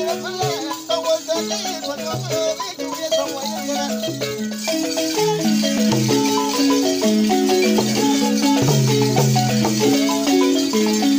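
Balafons, West African wooden xylophones, played together in a fast, repeating pattern of short struck notes, with a rattle shaken along with them.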